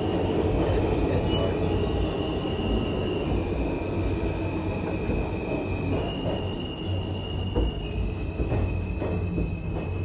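R160A-Alstom subway car heard from inside with its air conditioning off: steady rumble of wheels on rail with a few knocks, over a high whine that shifts pitch in steps several times.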